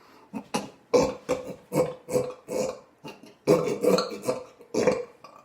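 A rapid string of short belches in two runs, with a brief pause about three seconds in.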